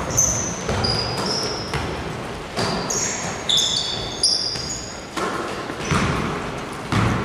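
Basketball game on an indoor court: the ball bouncing at an irregular pace and sneakers giving short high squeaks on the floor.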